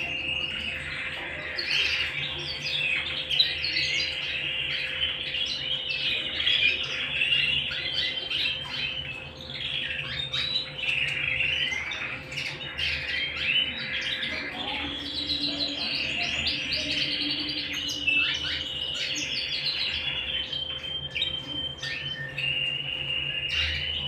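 Domestic canaries singing: a continuous run of fast chirps and rolling trills, with longer trills held for a second or more past the middle and near the end.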